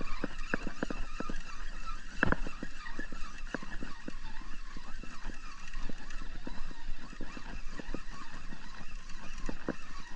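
Spinning reel being cranked to retrieve line, its handle and gears giving a dense, irregular run of clicks and ticks.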